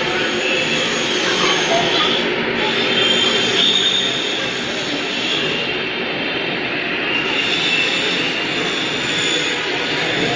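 Jakarta MRT train running, a steady rolling noise with a faint high whine.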